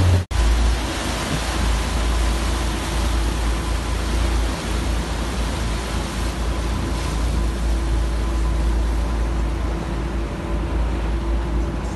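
A boat under way: a steady engine hum mixed with the rush of water from the wake and wind buffeting the microphone as a deep rumble.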